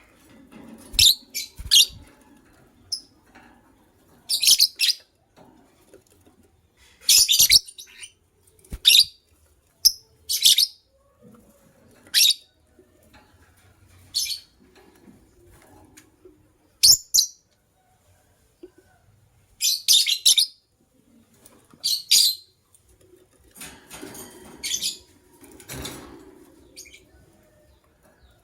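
Lovebirds chirping: short, sharp, high-pitched calls, one every second or two with occasional longer pauses, and faint rustling and tapping between calls.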